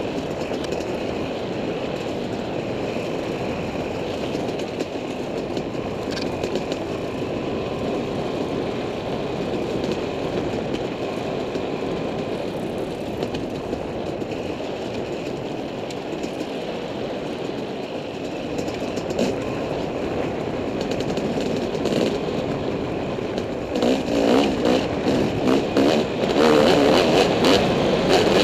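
Dirt bike engine running as the bike rides along a singletrack trail, heard through a helmet-mounted camera as a steady mix of engine and rushing noise. It grows louder and more uneven in the last few seconds.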